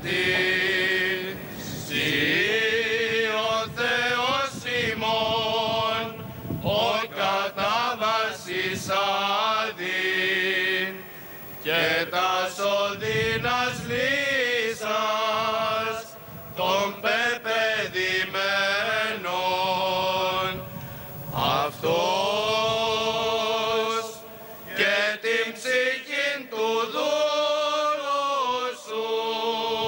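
Byzantine chant by men's voices: long, ornamented held notes that waver and glide, sung in phrases with short breaks between them.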